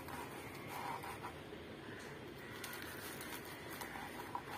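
Kitchen knife cutting through a crisp fried mughlai paratha on a wooden chopping board: a few light crunches and scrapes of the blade.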